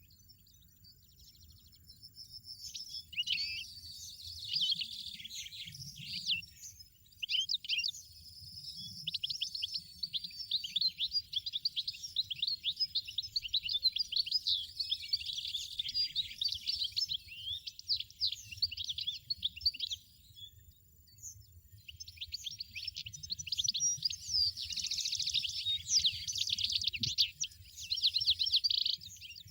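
European goldfinch singing: a fast, twittering song of rapid trills and chirps that runs on with a short pause about two-thirds through.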